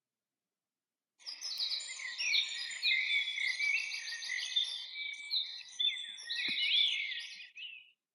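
Chorus of several songbirds singing at once, overlapping trills and whistled phrases. It starts abruptly about a second in and cuts off suddenly near the end.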